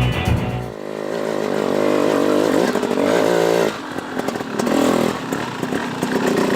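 Dirt bike engine accelerating, its pitch rising, then easing off about four seconds in before pulling again.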